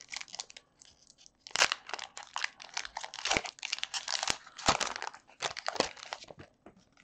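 Foil wrapper of a Pokémon booster pack being crinkled and torn open by hand. It crackles in quick bursts, with a few sharp snaps.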